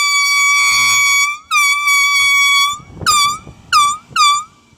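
Cheap Chinese-made air horn blown at a passing car: two long blasts and then three short ones, each bending in pitch as it starts.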